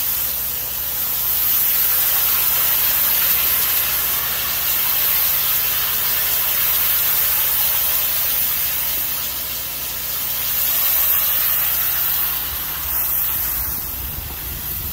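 Low-pressure soft-wash wand spraying a steady fan of water onto weathered white cedar shingles: a constant hiss, with a steady low hum underneath.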